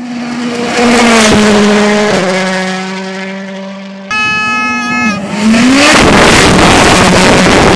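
Turbocharged 1.6-litre four-cylinder World Rally Car engines at full throttle on a gravel stage, in two passes cut together. The first car approaches and goes by with quick gear changes. The second holds a high engine note, drops briefly, then rises again and goes by close and loud with a rush of noise.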